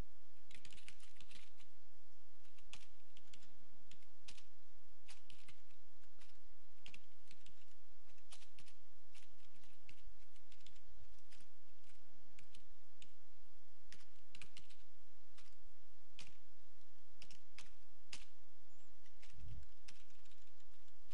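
Typing on a computer keyboard: irregular runs of keystrokes with short pauses between them, over a faint steady low hum.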